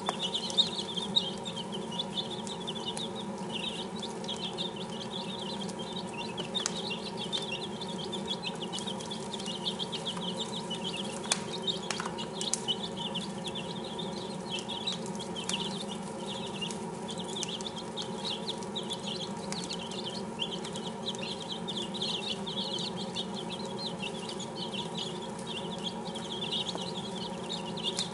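A brood of six-day-old chicks peeping constantly, many short high chirps overlapping without a break, with a few sharp clicks.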